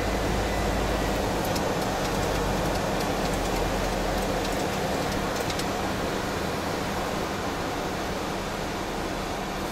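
Steady rushing cockpit noise on the flight deck of a Boeing 737-300 in flight: airflow and air conditioning, with a low hum underneath that weakens after a few seconds.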